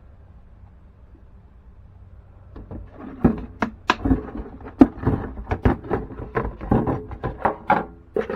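Objects being handled: a faint low hum, then from about two and a half seconds in a quick, irregular run of clicks, knocks and rattles.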